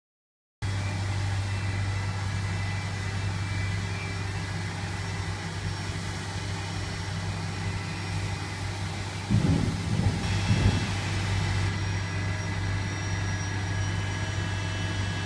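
Steady low machine hum of workshop equipment, with a few louder knocks and handling rattles between about nine and eleven seconds in, and a faint hiss from there on.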